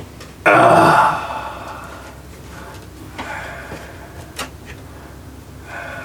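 A single shot from a Riley Defense RAK 308-C, an AK-pattern rifle in .308, about half a second in: very loud and clipped, ringing away over about a second. A brief sharp click follows later.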